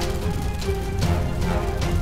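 Background music from a dinosaur animation soundtrack.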